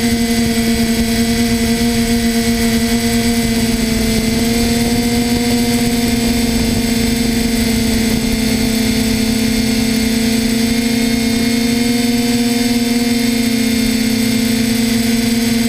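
Spidex V2 multirotor drone's brushless motors and propellers humming steadily, recorded by the GoPro carried on the craft itself; the pitch wavers slightly as the motors adjust.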